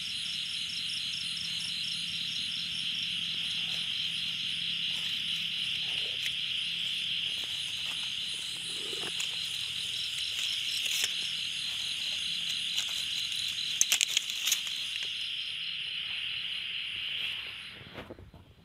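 Night-time chorus of crickets or similar insects: a steady, high-pitched trilling with a fast pulse, fading out near the end. A few brief clicks or rustles come about two-thirds of the way through.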